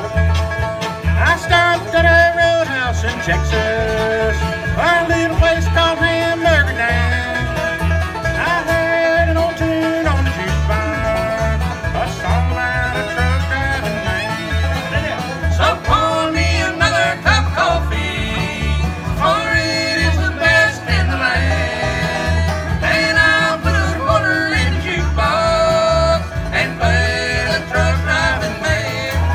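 Bluegrass band playing live: banjo, acoustic guitar and fiddle over an upright bass keeping a steady beat.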